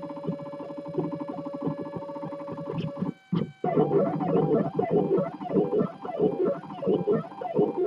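3D printer's stepper motors singing as the print head moves. A steady whining tone changes about three seconds in, after a brief dip, to quick back-and-forth moves whose pitch sweeps up and down several times a second.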